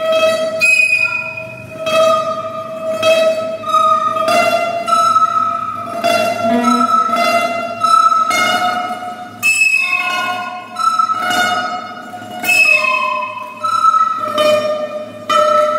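Classical guitar and a wooden end-blown flute playing a duet: the flute holds long melody notes while the guitar plucks under them, the notes changing about once a second.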